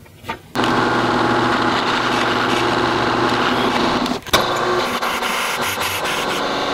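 Benchtop drill press running and drilling through a square steel bar held in a drill-press vise: a steady motor hum with the bit cutting into the steel. There is a brief break about four seconds in.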